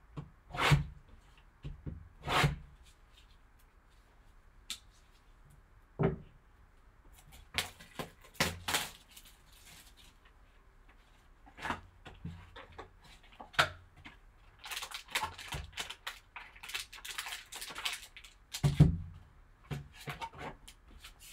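Cutting and peeling the plastic shrink-wrap off a sealed trading-card box, with sharp clicks and taps of the blade and the cardboard box being handled. About 15 s in comes a few seconds of crinkling wrap, then a knock as the box lid is lifted off.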